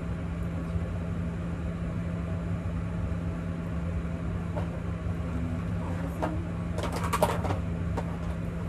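A steady low motor hum, with a few short clicks and rattles about seven seconds in.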